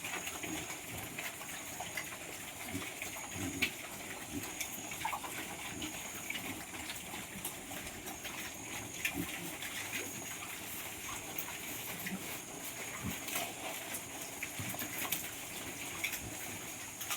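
Piglets eating pre-starter feed, with many scattered short clicks and brief low sounds over a steady background noise.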